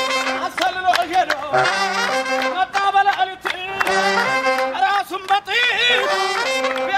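Saxophone playing an Ethiopian dance melody, some notes bending up and down, over a steady percussive beat.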